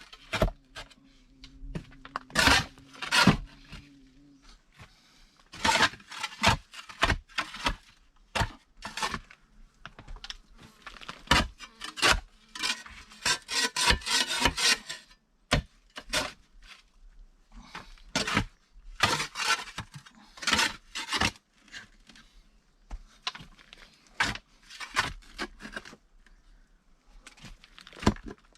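Stones being handled while a makeshift stove is laid out: irregular sharp knocks as rocks are set down and struck against each other, with scraping and rasping as they are shifted over the ground.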